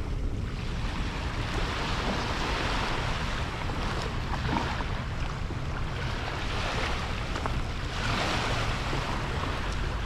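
Small waves washing up on a sandy shore, the surf swelling and fading every few seconds, with wind rumbling on the microphone.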